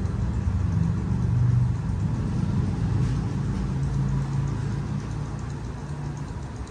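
Low, steady rumble of a motor vehicle engine running, easing off slightly near the end.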